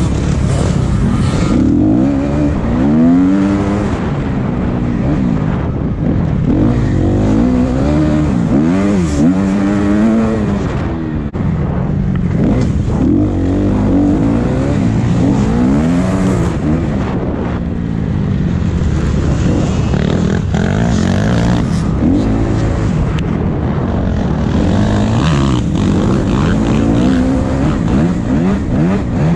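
Motocross bike engine revving up and down over and over as the rider throttles on and off around the track.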